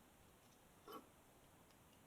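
Near silence with one brief, faint click about a second in.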